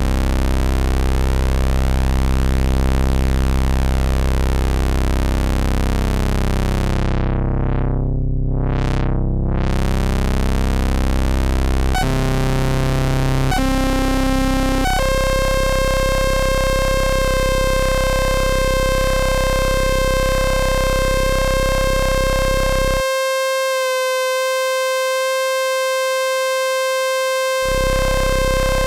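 Roland System-500 analogue modular synthesizer sounding a sustained low tone. About 12 seconds in, the pitch jumps up an octave, then again a second and a half later and once more at about 15 seconds, where it holds a steady higher note. For a few seconds near the end the low part of the tone cuts out.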